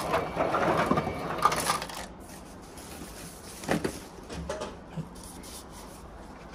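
Ice dispenser dropping ice cubes into a small cup, a clattering rattle for about two seconds, then a few light knocks and clicks.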